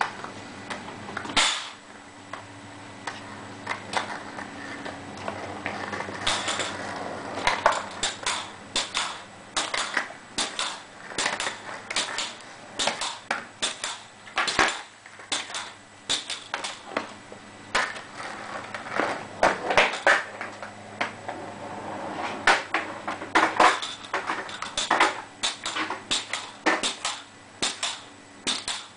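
Pogo stick bouncing on concrete: a sharp metallic clack at each landing, repeating about every half second through most of the stretch. A steady low hum runs underneath.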